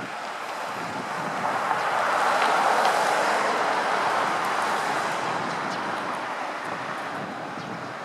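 A vehicle passing: its road noise swells to a peak about three seconds in, then fades away.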